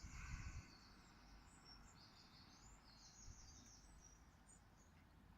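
Faint birdsong: small birds chirping and twittering, with a brief low rumble in the first half second.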